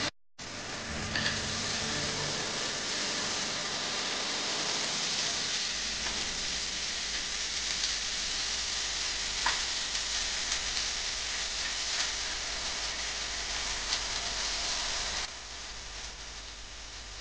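Chopped vegetables sizzling in hot oil in a nonstick pan while being stirred with a wooden spatula, with a few light clicks. About 15 seconds in the sizzle drops to a quieter hiss.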